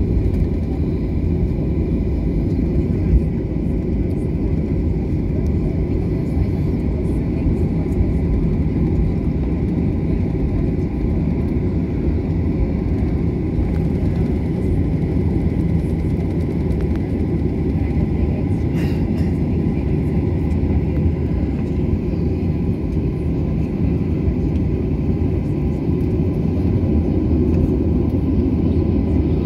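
Steady low rumble heard inside the cabin of a Boeing 737 airliner taxiing onto the runway, with the jet engines at low taxi power and a faint steady whine over it.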